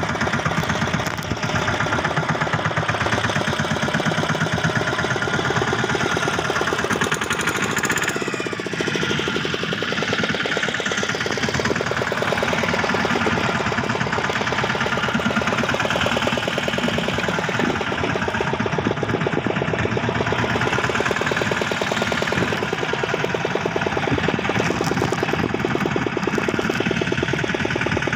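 Small fishing boat's engine running at a steady speed with a fast, even beat of firing strokes.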